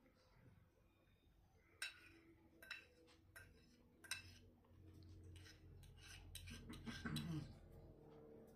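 Cutlery clinking against a plate in four sharp, separate clinks over a couple of seconds, followed by a brief low vocal sound near the end.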